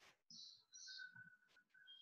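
Near silence: faint room tone with a couple of soft clicks and faint high chirps.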